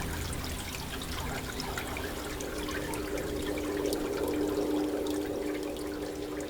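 Water rushing and splashing past a moving boat, with a steady engine hum beneath it that settles onto a lower note about two and a half seconds in.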